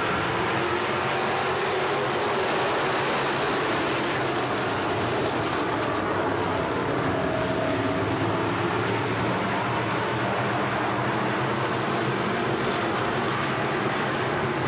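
A pack of factory stock race cars running around a dirt oval, their engines blending into one steady, dense drone.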